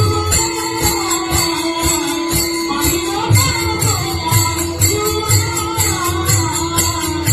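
Marathi devotional song music: a held drone note under a winding melody, with jingling percussion keeping a quick, even beat and low drum strokes.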